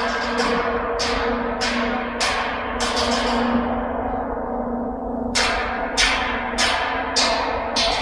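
Stage music: a large gong rings steadily under a regular beat of sharp percussion strokes, about one every 0.6 seconds. The strokes pause for about two seconds midway.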